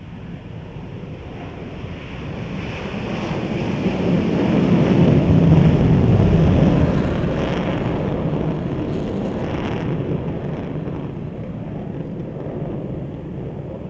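B-1B Lancer's four General Electric F101 afterburning turbofan engines on take-off in full afterburner: a loud, deep jet rumble that builds to its loudest about five to seven seconds in as the bomber lifts off and passes, then fades slowly as it climbs away.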